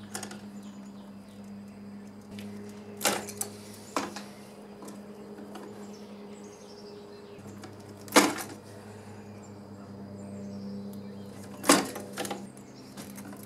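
Wire strippers and hands working copper building wires in a plastic electrical box: a handful of sharp snips and clicks, the loudest about eight and twelve seconds in, over a steady low hum.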